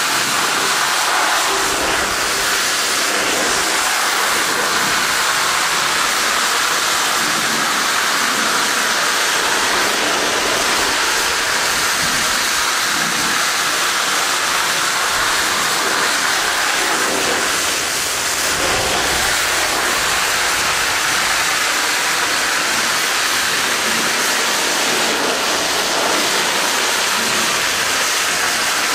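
Akron severe-duty water monitor's jet hissing and splashing steadily as it washes mud off a crawler dozer's tracks.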